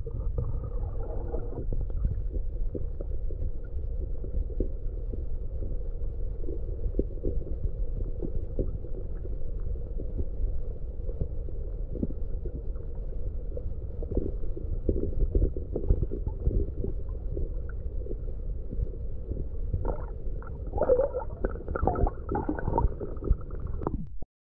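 Muffled low rumble of flowing river water heard by a camera held underwater, scattered with small clicks and knocks. There are a few louder gurgling bursts in the last few seconds, then it cuts off abruptly.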